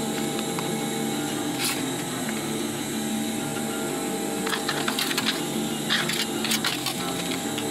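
A thin translucent plastic sheet and a clear plastic ruler handled on a cutting mat: scattered sharp clicks and crinkles, one a couple of seconds in and a cluster in the second half as the sheet is lifted.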